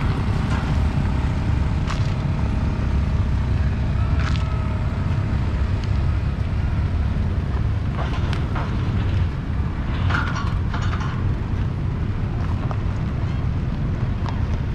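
Road traffic of cars, tuk-tuks and motorbikes passing, heard as a steady low rumble.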